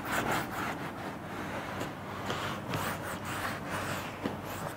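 Marker pen writing on a whiteboard: a run of short rubbing strokes as the writer forms symbols.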